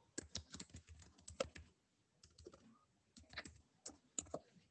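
Faint computer keyboard typing: short runs of key clicks, with a brief pause about two seconds in.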